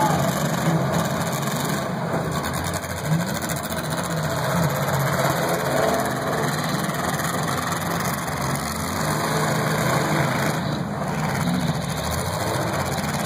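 Several demolition derby cars' engines running and revving as the cars accelerate and manoeuvre, a loud, steady mix of engines with pitch rising and falling.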